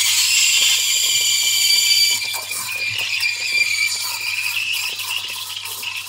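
Steam jetting from the steam wand of an Atomic stovetop espresso machine, a steady hiss with a shrill whistling edge. It starts abruptly and eases a little after about two seconds. One of the steam nozzle's holes is slightly blocked and the steam pressure is not particularly good.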